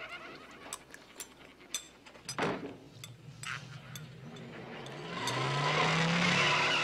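Sound effects of an on-screen subscribe-button animation: a run of sharp mouse-style clicks, then a swelling whoosh with a low tone rising in pitch, loudest near the end.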